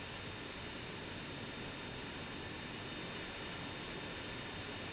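Steady, even hiss with a few faint, constant high tones, unchanging throughout.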